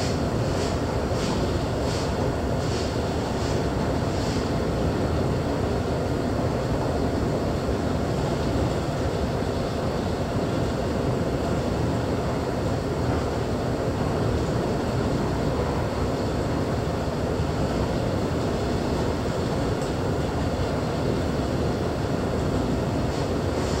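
Steady low rumble and hiss inside an LNG carrier's wheelhouse while the ship steams through a Force 9 gale, with light ticking in the first few seconds.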